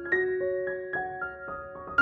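Background piano music: single notes played in an even broken-chord pattern, about four a second, each ringing on as the next sounds.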